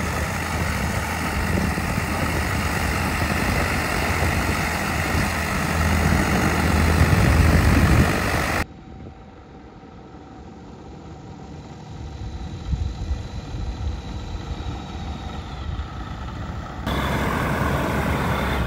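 Aeroprakt A22 ultralight's engine running with its new 70-inch three-blade propeller turning, close by and steady. About eight and a half seconds in, the sound drops abruptly to a quieter, more distant engine. The close, loud engine returns near the end.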